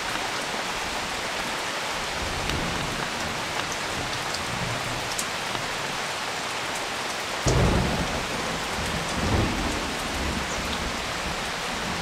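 Steady rain falling on foliage and thatched roofs. A low rumble of thunder swells suddenly past the middle and rises again a couple of seconds later.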